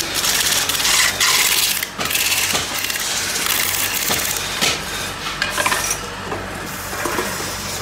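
Metal clattering and scraping with many short clicks and knocks, over the steady hum of a running workshop motor, as flat metal pan blanks are worked at a metal-spinning lathe.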